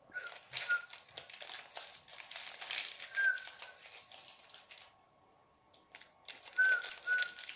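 Crinkling of a clear plastic toy packet being pulled and worked open by hand, with a few short squeaks of the plastic, in two spells with a brief pause about five seconds in.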